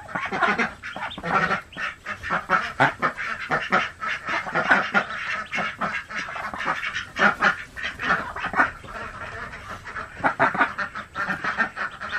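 Golden 300 mother duck on her nest giving a steady run of short, rapid quacks, several a second, with her newly hatched ducklings close by.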